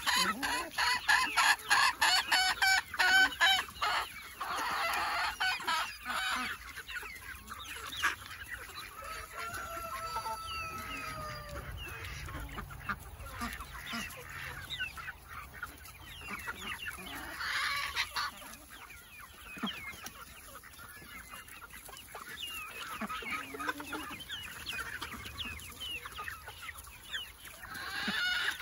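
A flock of chickens clucking and squawking as they feed on a pile of vegetable scraps. The calls are loudest and busiest in the first few seconds and build again near the end.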